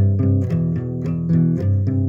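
Background music: plucked guitar and bass guitar playing a melodic line, a new note every fraction of a second.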